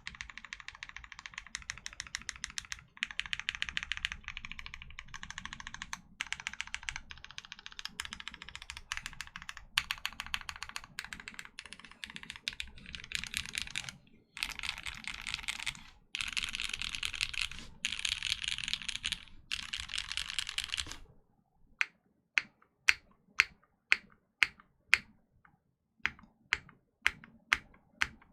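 Kohaku 65% custom mechanical keyboard with lubed and filmed Cherry MX Black Ultraglide linear switches, a polycarbonate plate, a Poron gasket mount and GMK keycaps, typed on fast in continuous bursts. About twenty seconds in the fast typing stops and gives way to single, louder key strikes about two a second.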